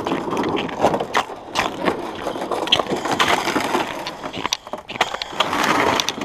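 Footsteps crunching over crusty frozen snow on lake ice, an irregular run of crackles and crunches.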